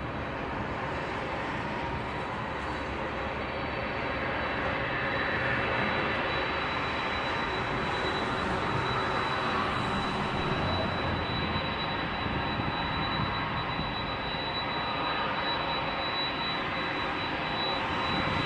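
Boeing 747-400 freighter's four jet engines at taxi power: a steady rush of jet noise with a thin, steady high whine on top, growing slightly louder near the end as the jet turns toward the listener.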